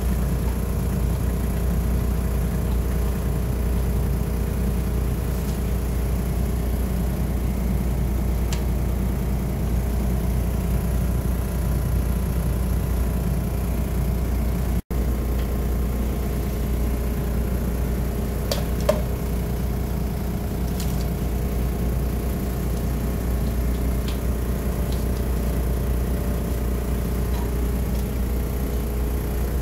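A steady low machine drone, like a shop ventilation fan or compressor, running without change, with a few faint clicks in the second half.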